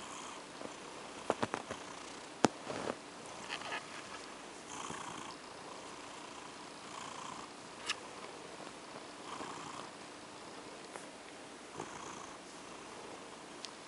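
Domestic tabby cat purring while being stroked, the purr swelling about every two seconds, with a few sharp clicks, the loudest about two and a half seconds in.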